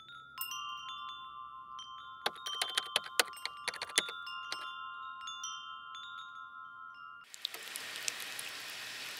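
A tubular wind chime tinkling, its tubes struck repeatedly and left ringing with long overlapping tones. About seven seconds in it gives way to chopped green chillies sizzling and crackling in hot oil in a stainless steel pan.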